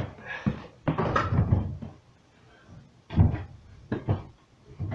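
Dull knocks and thumps with some rustling from a closet, its door and the hanging clothes being bumped and moved. A lull of about a second comes in the middle before a few more thumps.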